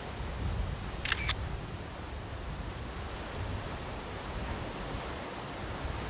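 Canon DSLR shutter firing twice in quick succession, about a second in: two crisp clicks a fifth of a second apart.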